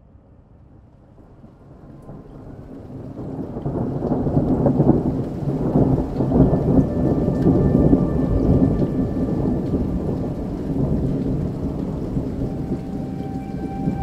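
Rain with a long rolling rumble of thunder that swells up over the first few seconds and then slowly eases. A few faint steady tones come in partway through and near the end.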